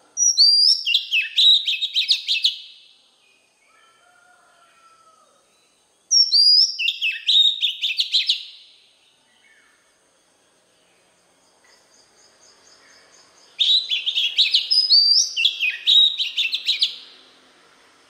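Oriental magpie-robin singing: three loud phrases a few seconds apart, each opening with high gliding notes and running into a quick string of sharp whistled notes.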